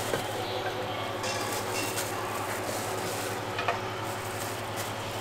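Steady frying sizzle from hot jianbing griddles over a constant low hum, with a couple of light metallic clinks from small steel pots of shredded vegetables being handled.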